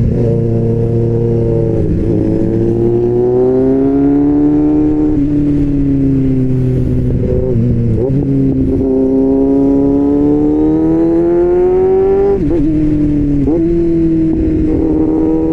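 Kawasaki motorcycle's inline-four engine, fitted with an SC-Project-style aftermarket exhaust, pulling through the gears while riding. Its pitch climbs steadily and drops sharply at each upshift, three times.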